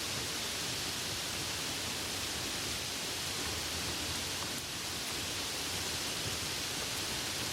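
Steady soft rain: an even hiss of falling rain with no separate drops or changes standing out.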